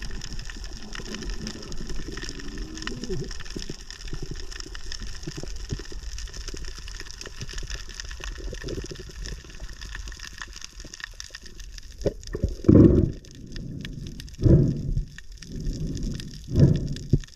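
Underwater sound picked up by a diving camera: a steady fine crackling over a low rumble. From about twelve seconds in come loud, low whooshing water surges every second or two.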